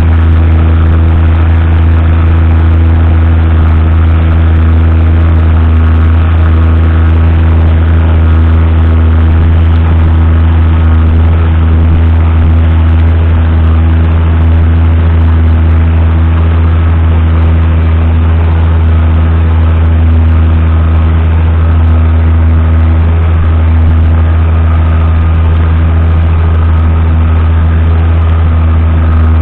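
Lamborghini R6.140 DCR tractor's 6.1-litre six-cylinder diesel engine running at steady revs, its pitch and level unchanging throughout.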